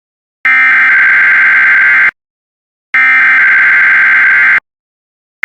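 Emergency Alert System SAME header tones: harsh digital data bursts of about 1.7 seconds each, a second apart, two full bursts with the third starting right at the end. This is the encoded header announcing a weather radio warning, here a freezing rain warning.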